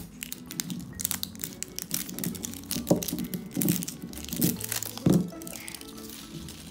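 Plastic wrapper layer of an L.O.L. Surprise ball being peeled off and crinkled by hand: a dense run of small crackles and tearing. Quiet background music plays under it.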